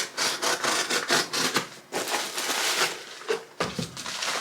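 A gift box and its packaging being opened by hand: a busy run of rustling, scraping and crinkling of card and paper in quick strokes, with short pauses.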